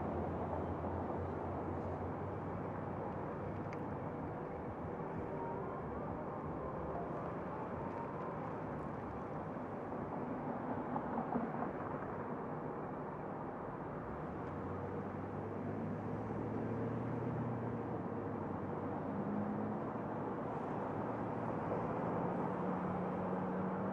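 Steady road noise of a car being driven: tyre rumble with a low engine hum that shifts in pitch now and then.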